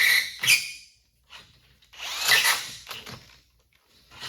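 Cordless drill with a 7/16-inch cobalt bit drilling metal in two short bursts of about a second each, with a whine and stops in between, as the bit binds and cuts poorly.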